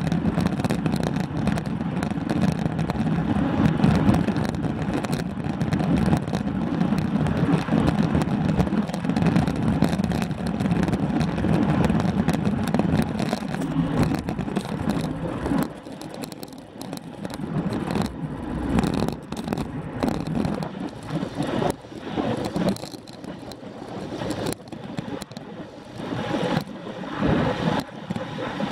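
Wind buffeting a bike-mounted camera's microphone, mixed with tyre and road noise from a road bike rolling at about 21 mph. The rushing noise is steady at first, then eases and turns patchier about halfway through.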